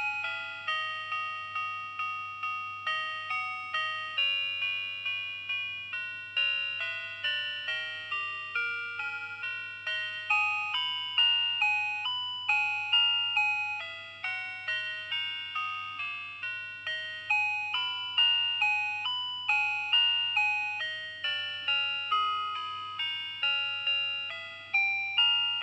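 A 1996 Tempic melody watch's dual-diaphragm sounder playing one of its electronic tunes. It is a high, bright run of short notes, two or three a second, each fading quickly, over a low steady hum.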